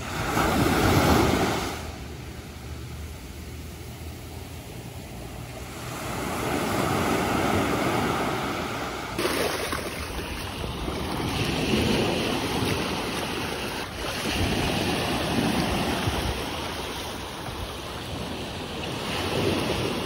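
Ocean surf breaking and washing up on a beach, surging every few seconds, with some wind on the microphone.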